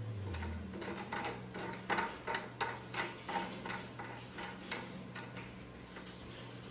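Sharp, irregular clicks and taps of a vial being fitted and pushed down into a clear acrylic tube tray, about a dozen over a few seconds, thinning out around five seconds in.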